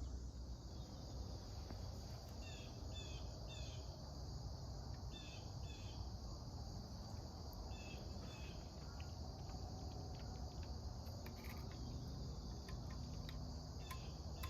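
Steady high trill of an insect chorus, crickets, with short chirps in twos and threes now and then.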